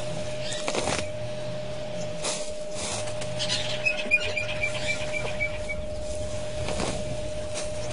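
African bush elephant feeding close to the microphone, its trunk rustling and tearing at grass, with noisy tearing sounds about a second in and again near the end. In the middle a bird gives a quick series of about eight short high notes, over a steady hum.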